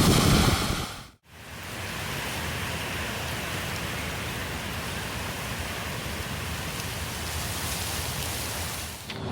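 A sound that fades and cuts off about a second in, then a steady, even rushing hiss.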